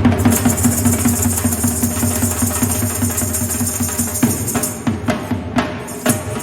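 A chimta, fire-tongs with small metal jingle discs, rattling and jangling in a fast bhangra rhythm over a dhol drum's deep beats. The strokes come thick and fast at first, then more spaced out after about four seconds.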